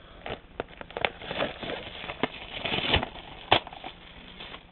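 Crinkling and crackling with scattered sharp clicks as a sealed box of trading cards and its plastic wrapper are handled for opening; the loudest click comes about three and a half seconds in.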